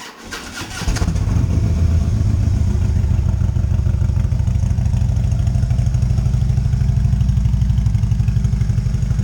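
Harley-Davidson Road Glide Special's Twin Cam 103 V-twin engine being started: a click and about a second of cranking, then it catches and settles into a steady, evenly pulsing idle.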